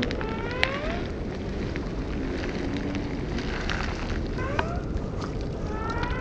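Wind rumbling on a microphone held at water level, with water sloshing around a swimming dog. Several short rising chirps come over it, a cluster about a second in, again about four and a half seconds in, and near the end.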